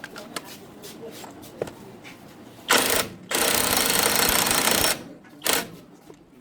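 Power tool running with a fast rattle in three bursts: a short one about three seconds in, a longer one of about a second and a half, and a brief last one. Light clinks of metal tools come before it.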